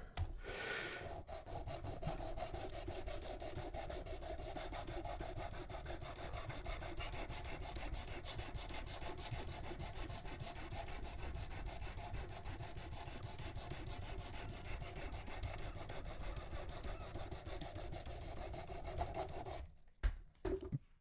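A 320-grit diamond sharpening stone on a Worksharp Precision Adjust guided sharpener, scraping steadily back and forth along a cheap, soft-steel knife edge to raise an apex. It stops about a second and a half before the end, followed by a couple of light knocks.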